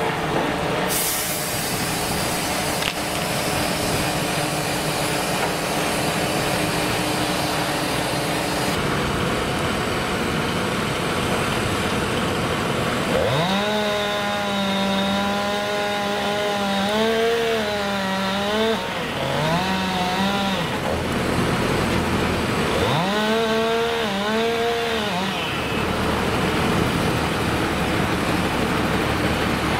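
Tractor-driven mobile wood chipper running and chipping wood, a steady heavy machine noise. About halfway through a loud whine sets in with a rising pitch, then dips and wavers for several seconds as wood is fed through. It comes back briefly later.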